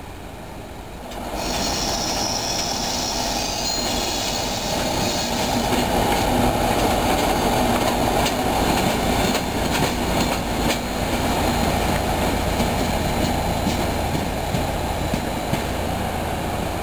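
Dv12 diesel locomotive with its SACM MGO V16 engine passing close by, the engine running loud and steady. For the first few seconds the wheels squeal with a thin high tone, then the wheels click repeatedly over the rail joints.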